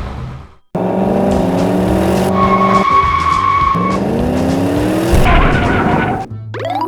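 Cartoon car sound effects: an engine revs up twice, rising in pitch each time, with a steady high tyre squeal between the two revs.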